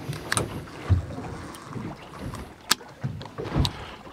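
Sea water slapping and lapping against the hull of an anchored small fishing boat, with wind on the microphone. A few sharp clicks and knocks come through, the sharpest nearly three seconds in.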